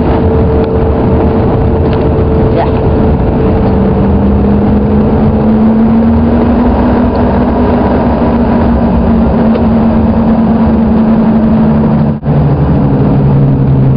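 Jet airliner's engines droning steadily, heard inside the cabin: a loud even roar with low hums. One hum edges slightly higher in pitch a few seconds in. Near the end the sound breaks off for an instant and comes back with a lower hum.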